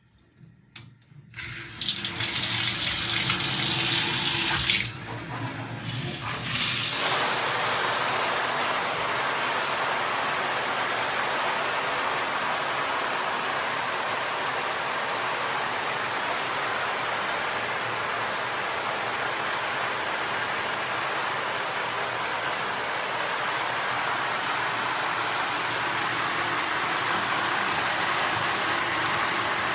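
Handheld shower head spraying water: the spray starts a second or two in, drops off briefly about five seconds in, then comes back and runs steadily.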